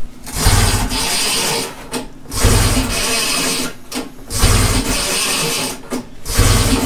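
Recoil pull-starter of a 1972 Ski-Doo Nordic 440's two-cycle Rotax engine yanked four times, about every two seconds. Each pull is a rasping whirr of cord and cranking engine that does not catch, because fuel has not yet primed up into the carburetor.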